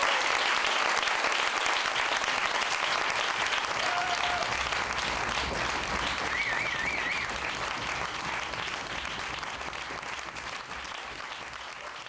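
Audience applauding, the clapping fading out gradually toward the end.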